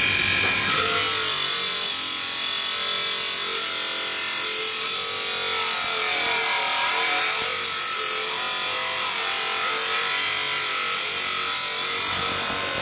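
Carbon-steel kukri blade blank pressed against a spinning pedestal grinding wheel: a steady, harsh, hissing grind of steel on abrasive that starts about a second in, over the running grinder.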